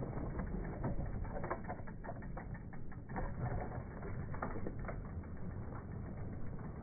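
Bicycle freewheel hub ticking in rapid, uneven clicks as the bike coasts, over a low rumble.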